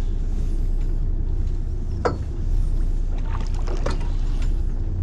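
Steady low rumble of a fishing boat's engine running, with a few sharp clicks and knocks about two seconds in and again shortly before four seconds.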